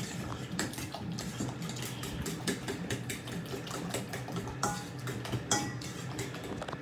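Fork beating eggs in a stainless steel bowl: a quick, continuous run of clinks and scrapes of metal against the bowl.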